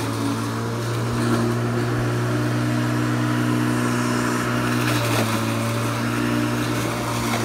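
Corded electric rotary lawn mower running under load, a steady motor hum with an unchanging pitch as it is pushed through tall grass.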